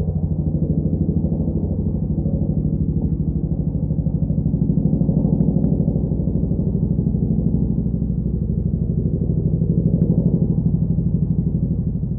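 Chinook twin-rotor helicopter running steadily, its rotor blades beating in a rapid, even low pulse that swells slightly in the middle and again about ten seconds in.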